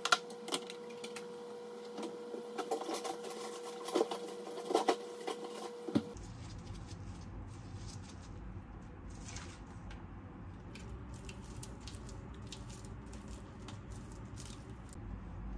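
Fish cake soup simmering in a pot on an induction cooktop: a steady hum with scattered sharp pops from the bubbling broth. About six seconds in, this gives way to gloved hands pressing and spreading cooked rice over a sheet of laver on a bamboo rolling mat, with soft patting and rustling.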